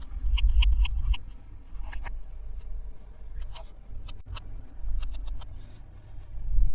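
Hands handling small hard toy pieces and packaging on a table: a run of sharp clicks and taps, with low thumps of handling under them and a heavier knock near the end.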